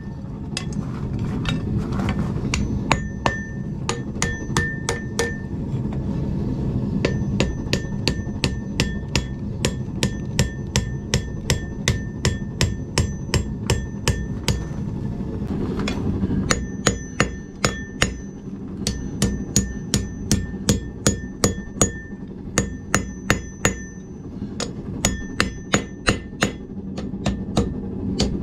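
Hand hammer blows on an Alec Steele steel anvil, forging a bar in quick steady runs of about three blows a second, each blow with a short bright ring from the anvil. The runs break off in brief pauses twice, and a steady low rumble continues underneath.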